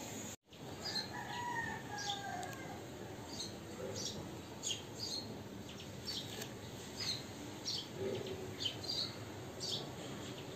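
Small birds chirping in many short, repeated high calls, with a longer falling call about a second in.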